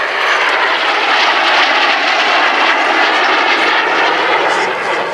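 Jet noise from a pair of Folland Gnat jet trainers' Bristol Siddeley Orpheus turbojets flying past: a loud, steady rush that swells in the first second and eases slightly near the end.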